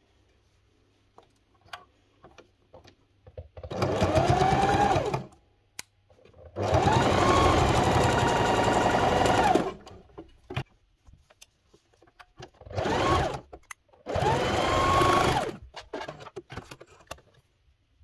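Domestic electric sewing machine stitching through cotton batting and fabric in four short runs. On each run it speeds up to a steady whirr, then winds down as it stops. Light clicks from handling the work fall between runs.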